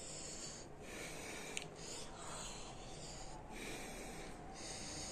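A man breathing heavily, several hissing breaths about one a second, from the burn of a Carolina Reaper chili pepper in his mouth and throat.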